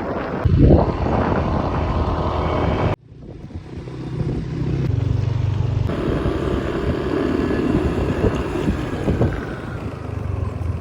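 Wind buffeting the microphone over a steady low vehicle rumble. It is cut off abruptly about three seconds in, then builds back to a similar steady noise.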